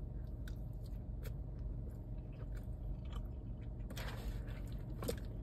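Close-up chewing of a mouthful of kimchi fries with spicy pork, with small scattered mouth clicks and a fork scraping in a cardboard takeout box. A brief rustle about four seconds in and a sharper click about five seconds in.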